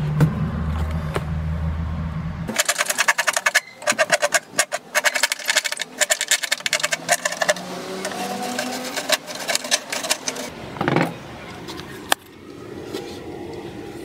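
Hacksaw blade sawing through a refrigerator's plastic liner and foam insulation in short runs of quick rasping strokes, with a couple of knocks near the end. A low hum comes before the sawing starts.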